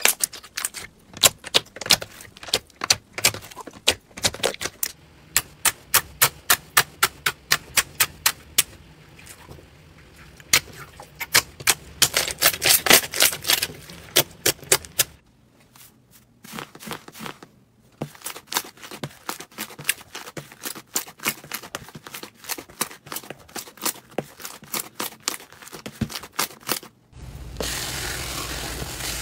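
Clear green slime squeezed and pressed by hand, giving runs of sharp, crisp pops and clicks, several a second, as air pockets in it burst. Near the end this changes to a dense, steady fizzing crackle as fluffy purple cotton slime is pressed.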